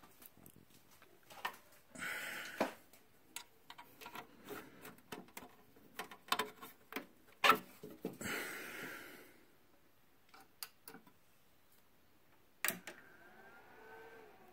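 Scattered clicks and knocks of RCA cable plugs being handled and pushed into the rear sockets of a phono preamp, with two short hissing bursts among them.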